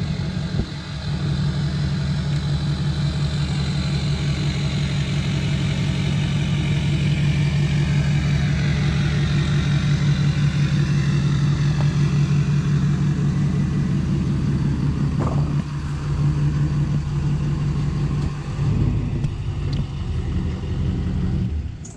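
2006 LBZ Duramax 6.6-litre V8 turbo-diesel with a 5-inch straight-pipe exhaust, running at idle as the truck is driven slowly: a steady, low, pulsing rumble that cuts off suddenly near the end.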